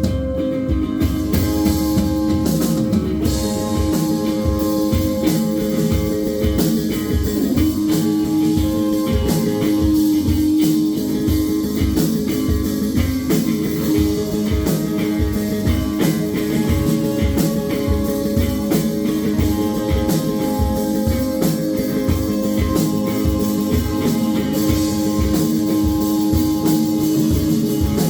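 Live rock band playing an instrumental passage: guitar notes held over a steady drum kit beat, with cymbals coming in about a second in.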